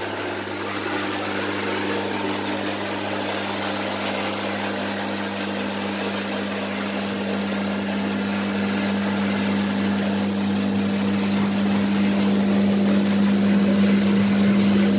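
DTF powder shaker and dryer unit running: a steady machine hum with fan hiss, growing slightly louder toward the end.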